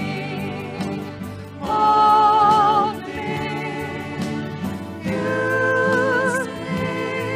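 Church worship singing, with long held notes sung with vibrato over steady instrumental accompaniment. The loudest held note comes about two seconds in, and another follows near the end.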